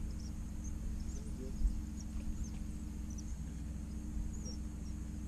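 A steady low hum of several even tones, with faint short high chirps scattered over it.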